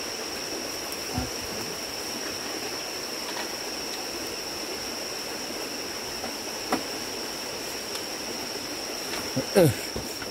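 An iron poker clanks a few times at the firebox of a clove-oil still, the loudest knock with a short falling scrape near the end, over a steady rushing noise and a steady high whine.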